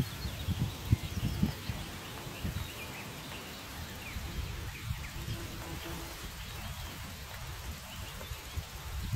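Outdoor meadow ambience: wind buffeting the microphone in gusts, strongest at the start and again at the very end, with scattered short bird chirps.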